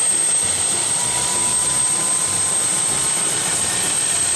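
Helicopter on the ground with its turbine engine running and main rotor turning. A steady high turbine whine sits over the low, even beat of the rotor blades.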